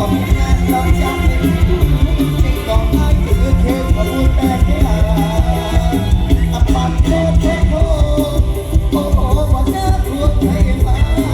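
Loud amplified mor lam band music from a live stage show, with a fast, even bass beat and a melody line that may carry a singing voice.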